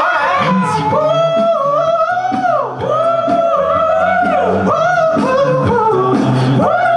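A male a cappella group singing a pop song: a lead voice sliding between notes over close backing harmonies and a steady sung bass line.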